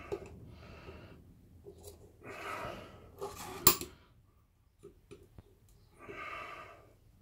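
Circlip pliers working a circlip off the rear of a Holden M20 gearbox mainshaft: small metal clicks, then a sharp loud snap about three and a half seconds in as the clip comes free. Loud breaths come in between.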